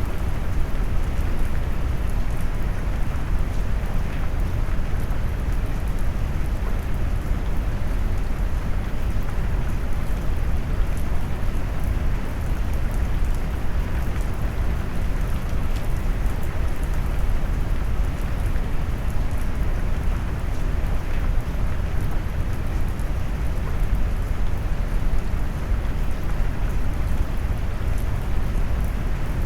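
Rain mixed with brown noise: a steady, deep rushing that is heaviest in the bass and fades toward the treble, with a faint patter of drops on top and no changes.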